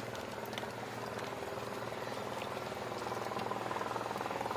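A small engine idling steadily, with a fast, even pulsing that swells slightly near the end.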